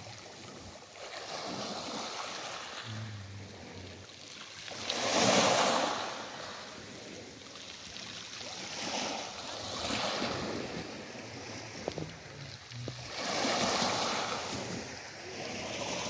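Small Aegean Sea waves washing onto the shore, coming in swells every few seconds, the loudest about five seconds in.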